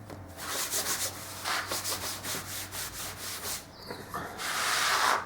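Repeated rubbing strokes over a glued sheet of sandpaper as it is pressed down, with one longer, louder rub near the end.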